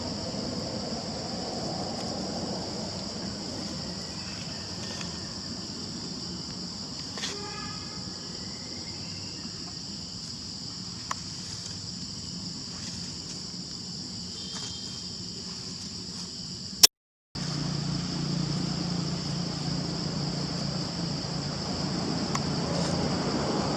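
Steady high-pitched insect chorus droning throughout over an outdoor background rumble. A short faint call sounds about a third of the way in, and about two-thirds in a sharp click is followed by a brief dropout, after which the low rumble is louder.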